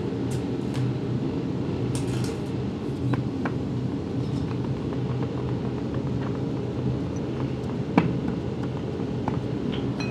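Steady low machinery hum, with scattered light knocks and taps as moulding sand is rammed into a metal moulding flask by hand. A sharper knock comes about eight seconds in.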